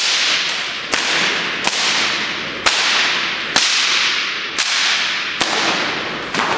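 A bullwhip being cracked in a freestyle routine: about nine sharp cracks, roughly one a second, with a quick double crack near the end. Each crack is followed by a long echo that fades before the next, as in a large hard-walled hall.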